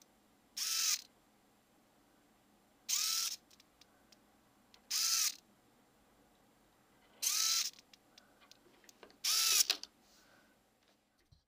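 Micro servo whirring in five short bursts, about two seconds apart, as it swings a pair of animatronic eyes from side to side. Each burst lasts about half a second, with a whine that rises at its start; the last burst, near the end, runs a little longer.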